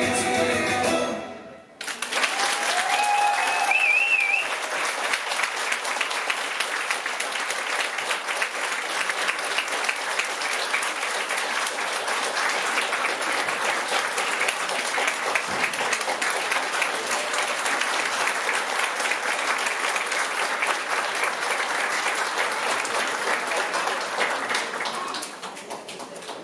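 The dance music ends about a second and a half in, and an audience breaks into sustained applause, which fades out near the end. A brief high wavering call rises above the clapping about three seconds in.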